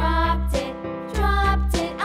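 Cheerful children's background music with a bass line and light percussion.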